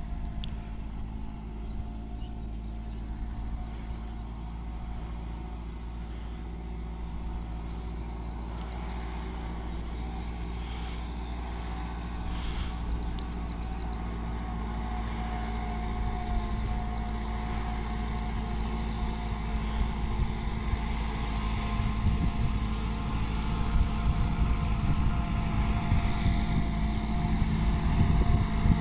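Massey Ferguson 375 tractor's four-cylinder diesel engine running steadily under load as it pulls a laser land leveler across a dry field, growing louder as the tractor draws closer.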